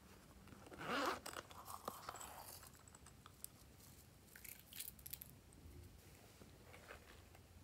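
Handling noise: a brief rustling rub about a second in, then scattered light clicks and crackles as hands move a foam squishy toy and touch the plastic trays of slime toppings.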